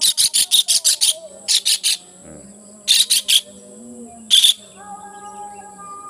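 A kingfisher trapped in a pond net giving harsh, rapid rattling calls, fast runs of sharp high 'kak-kak-kak' notes about eight a second. It calls in four bursts, the first the longest and the last a short one near the end.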